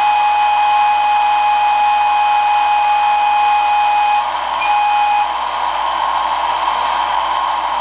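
Model-railway sound from an ESU V3.5 sound decoder played through a small 8-ohm speaker with a 50-ohm resistor in series: a steady rushing locomotive running sound, with a pitched signal tone held for about four seconds, then a short second blast half a second later.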